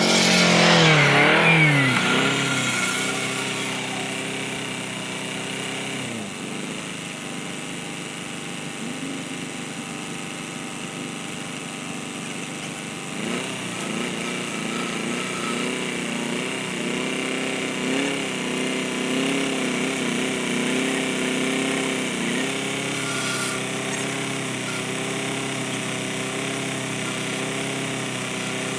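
Farm tractor engine running, its pitch falling over the first two seconds and then holding steady. About halfway through it grows louder, rising and dipping in pitch as the tractor works on the boat ramp to haul a sailboat out of the water.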